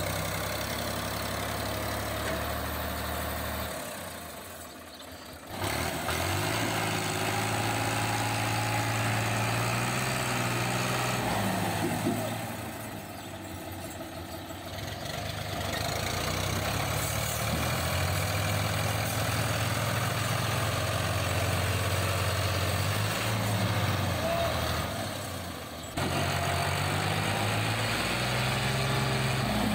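Tractor diesel engine running at a low, steady speed while pulling a heavily loaded trolley. Its sound drops away briefly about four seconds in, again midway and shortly before the end, then comes back.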